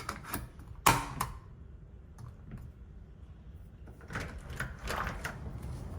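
Plastic battery cover of a Kwikset Halo smart lock being slid back on: one sharp snap about a second in, then a run of small clicks and scrapes near the end.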